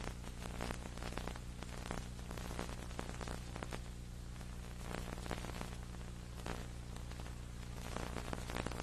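Steady low electrical hum under hiss and irregular crackling static: line noise where the recording's sound has dropped out.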